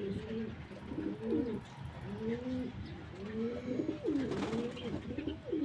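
Domestic pigeons cooing: repeated low coos that rise and fall, about one a second, overlapping one another.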